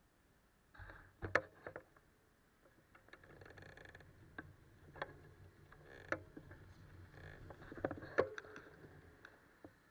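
Bicycle setting off and rolling along the road, heard faintly: a low tyre rumble with scattered sharp clicks and knocks from the bike and its handlebar mount, the loudest a couple of knocks about a second in and near the end.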